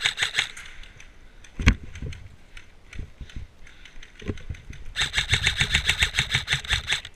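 Airsoft electric rifle (AEG) firing: a short rapid burst at the start, a few single sharp knocks, then a full-auto burst of about two seconds near the end, rattling at roughly ten shots a second.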